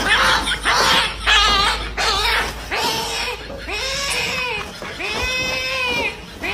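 A cat meowing: about three drawn-out meows, each arching up and down over roughly a second, in the second half. They follow a couple of seconds of harsh, noisy sounds.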